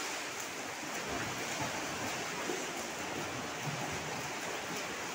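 Several children swimming front crawl side by side, their arm strokes and kicking feet splashing the pool water in a steady wash.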